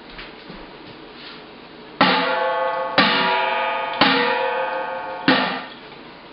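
Metal cooking pots banged together as homemade thunder: four ringing clangs about a second apart, starting about two seconds in, each ringing on with a clear metallic pitch and fading until the next.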